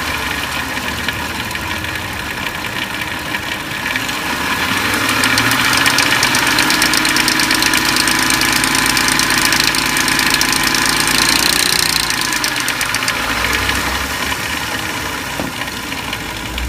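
2004 Lincoln Navigator's 5.4-litre V8 running with the rattle of a noisy timing chain. It is revved up about four seconds in, held there, and let back down to idle between about twelve and fourteen seconds.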